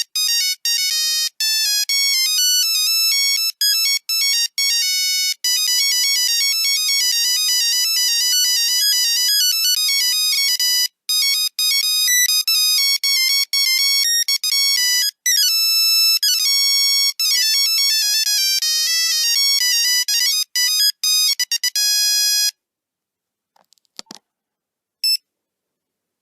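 Nokia 3310 monophonic ringtone: a fast melody of single electronic beeping notes, which stops about 22 seconds in. A short beep follows near the end.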